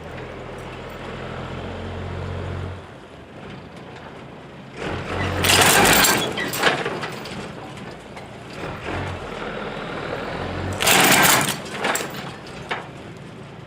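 Backhoe engine working hard as the machine pushes against a deep-rooted tree stump. Two loud, harsh bursts of noise, each about a second long, come about five and eleven seconds in.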